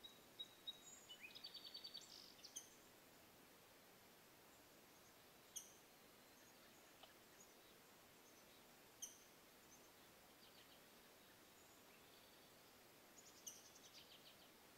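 Faint songbird calls over a quiet outdoor hiss: a quick high trill about a second in and again near the end, with single sharp chip notes every few seconds.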